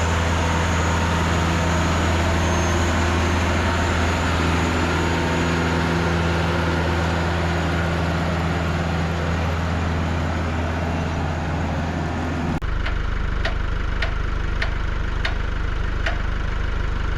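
Tractor engine running at a steady idle. About twelve seconds in the sound changes abruptly to a deeper engine note with sharp ticks roughly every two-thirds of a second.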